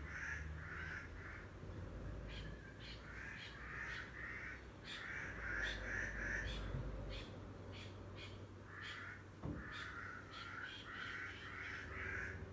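Birds calling in runs of short repeated notes, with an evenly pulsing high hiss behind them.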